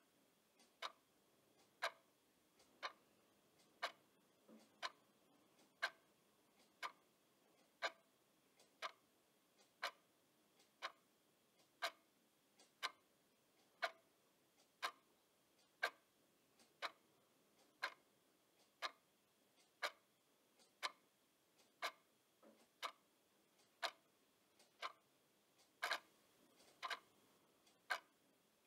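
Clock ticking faintly and steadily, about once a second.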